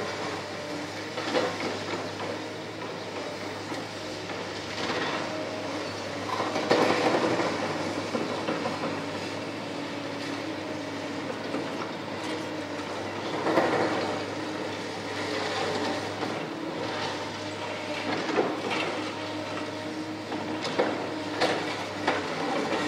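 Track excavators at demolition work: a steady diesel engine hum with irregular metallic clanks and knocks of steel on concrete, the loudest about 7 and 13.5 seconds in.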